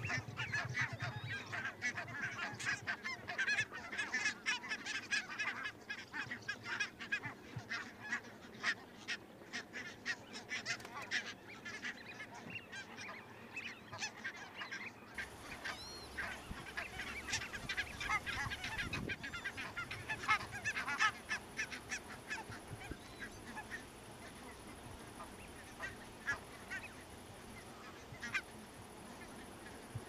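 A flock of greylag geese calling: many overlapping honks and cackles, dense for most of the time and thinning to scattered calls in the last several seconds.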